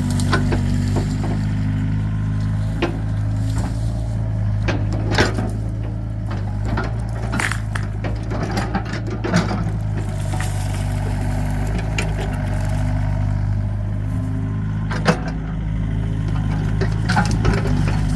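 Excavator's diesel engine running steadily, with scattered sharp cracks and knocks over it, the loudest about five and fifteen seconds in.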